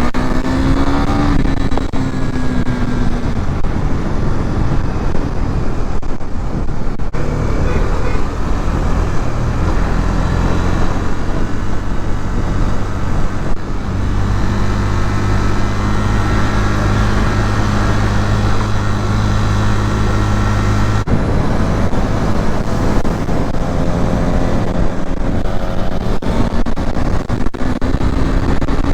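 KTM Duke 390's single-cylinder engine under way, with wind and road noise throughout. The engine pulls up through the revs in the first few seconds, then holds a steady cruise. It drops off about two-thirds of the way through and climbs again near the end.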